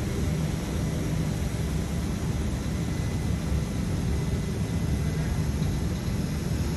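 Liebherr R950 high-reach demolition excavator running steadily, a constant low engine rumble as its boom presses against a steel chimney.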